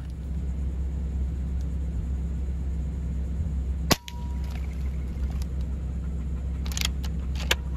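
A steady low rumble, broken by one sharp crack about four seconds in, with a few faint clicks near the end.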